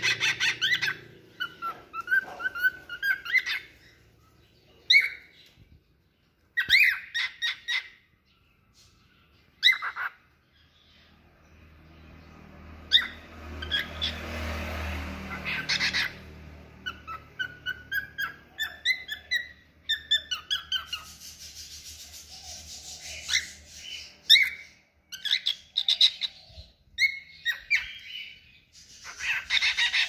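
Cockatiels chirping and whistling in short bursts of rising and falling notes: a pet cockatiel practising its song. A rushing noise with a low rumble swells and fades midway through.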